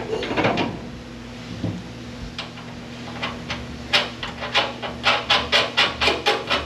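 Metal clatter as a fuel-tank strap is worked into place. In the second half comes a run of sharp, evenly spaced clicks, about four a second, over a steady low hum.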